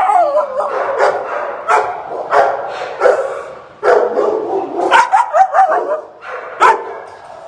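Dogs barking in a shelter's kennel cages: a run of loud, irregularly spaced barks, about a dozen, echoing in the kennel room.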